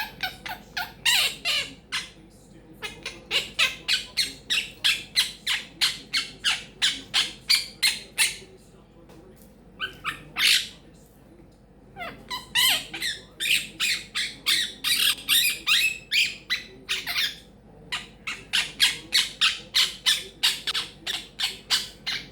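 Quaker parrot (monk parakeet) giving rapid runs of short, harsh squawks, about three a second, in bouts of several seconds with brief pauses between them.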